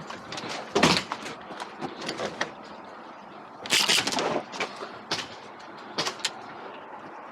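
Scattered knocks, clicks and scuffs of movement through a building: footsteps and gear or rifle knocking, with a louder knock about a second in and a longer, louder scuffle about four seconds in.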